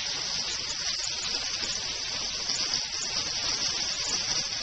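Steaks sizzling in oil on a hot cast iron grill pan: a steady high hiss.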